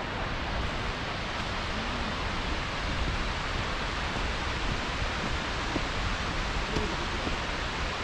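Yudaki waterfall rushing steadily, an even wash of water noise that grows slightly louder.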